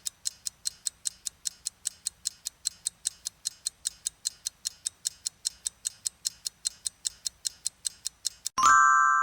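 Countdown timer sound effect: rapid, even clock ticking, about five ticks a second. Near the end the ticking stops and a single bright bell ding rings out and fades, marking time up.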